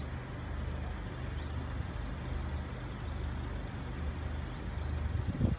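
Steady low hum of an engine idling, unchanging throughout.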